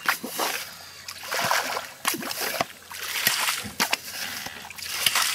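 Yabby pump (nipper pump) being worked in shallow water over wet sand: irregular splashing and sloshing of water and sand, several splashes in a row.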